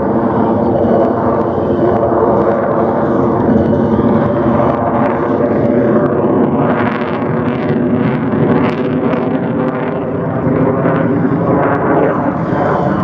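Jet noise from the F-22 Raptor's twin Pratt & Whitney F119 turbofans as the fighter manoeuvres and passes overhead. The noise is loud and steady, and it turns harsher and brighter for a few seconds around the middle.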